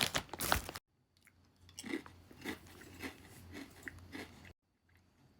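Potato chips being bitten and chewed: a loud crunchy burst at the start, then after a brief gap steady crunching chews, about two a second.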